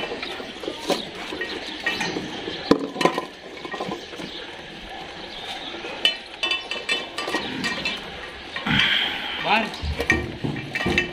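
Dogs eating from stainless steel bowls on a tiled floor, the metal bowls clinking and scraping with scattered sharp clinks.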